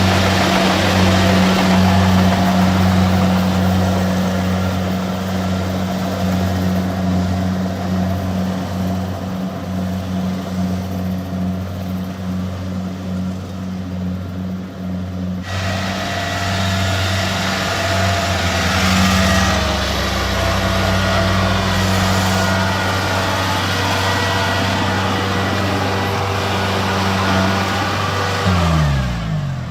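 Engine of a rice-harvesting machine running steadily at a constant speed, then winding down with a falling pitch near the end as it slows or shuts off.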